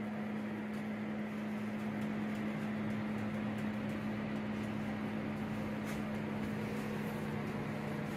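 Steady hum of a grow tent's fans running (box fan, circulation fan and duct exhaust fan), with one constant low tone held throughout.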